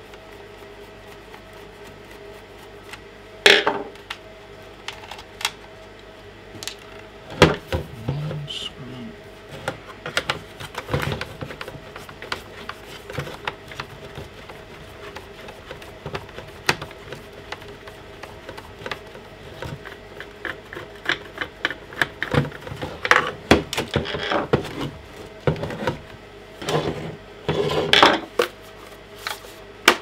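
Irregular clicks and knocks of a screwdriver working on the plastic housing of a Bosch VXAS012V18 handheld vacuum cleaner, and of the housing being handled on a tabletop. The sharpest knocks come about 3 and 7 seconds in, with a busier run of clatter near the end, over a faint steady hum.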